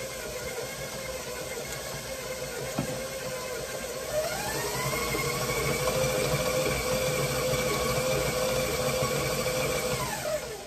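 Electric stand mixer running, beating a stiff cookie dough. About four seconds in its motor whine rises as it is turned up to a higher speed; near the end it winds down and stops.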